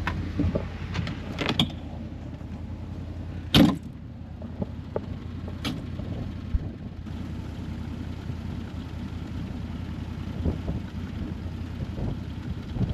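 Side-by-side utility vehicle running steadily with a low engine hum, with a few sharp knocks and rattles, the loudest about three and a half seconds in.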